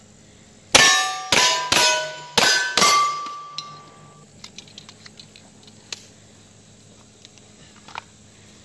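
Five pistol shots fired in about two seconds, each with the ring of a struck steel plate right after it; the last plate rings on for more than a second. A few faint ticks follow.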